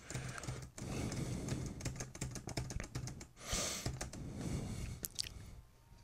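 A computer mouse clicking rapidly, many quick uneven clicks one after another, as a column of checkboxes is ticked.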